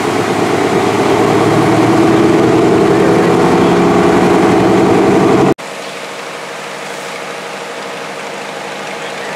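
Antique fire engine pumper's engine running hard to pump water drafted from the river out through its deck gun, its pitch rising slightly. About halfway through it cuts to another pumper's engine running steadily and more quietly.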